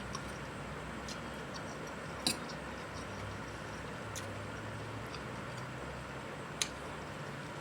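A few sharp clicks and ticks while eating, two of them clearly louder, over a steady low hum.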